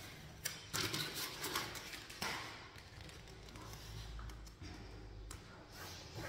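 Soft rustling and crinkling of self-adhesive vinyl film and its paper backing being handled, with a few short crisp crackles in the first couple of seconds.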